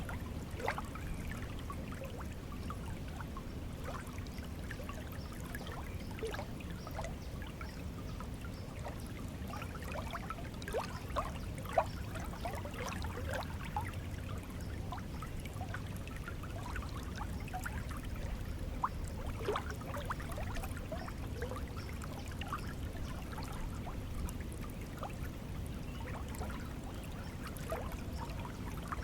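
Flowing stream water: a steady low rush with scattered bubbling and trickling plinks.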